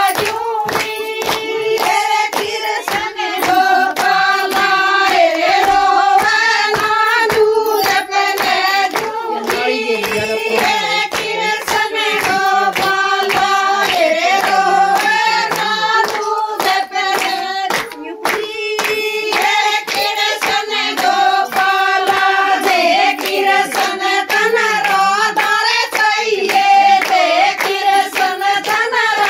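Group of women singing a Haryanvi Krishna-Radha bhajan together, with steady rhythmic handclapping keeping time.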